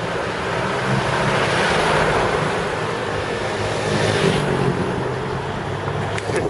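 Wind rushing over the microphone while riding, with a steady low vehicle engine hum underneath.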